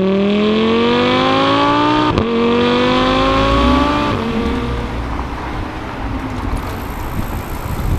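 Lamborghini Huracán's V10 accelerating hard, its note climbing steadily, with a quick upshift about two seconds in before it climbs again. About four seconds in the engine note breaks off, leaving fainter road and traffic noise.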